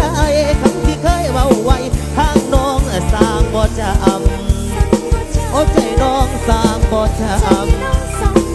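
Live band music with a steady drum beat and a wavering, vibrato-laden melody line over a heavy bass.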